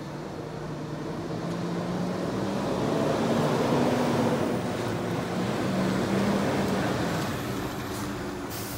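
Diesel engine of a Scania P230 street sweeper truck driving up and past, growing louder toward the middle, its note rising and falling as it changes speed. A short hiss near the end.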